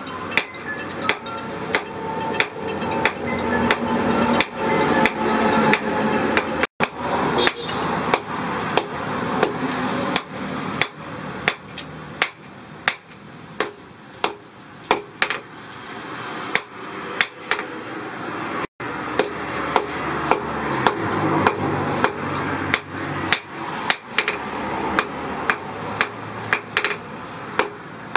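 Hammer blows on a red-hot high-carbon spring-steel knife blade resting on a small steel post anvil, about two strikes a second, each one loud and sharp and dying away quickly.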